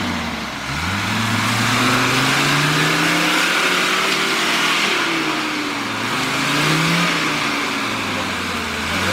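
Mercedes-Benz G-Class off-roader's engine revving under load as it pushes through deep mud ruts; the revs dip just after the start, then climb and rise and fall several times.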